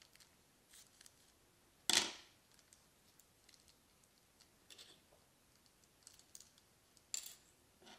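Scissors snip through a small plastic bag about two seconds in. Faint rustling and small clicks follow as the bag and tiny plastic toy pieces are handled, with a sharper click near the end.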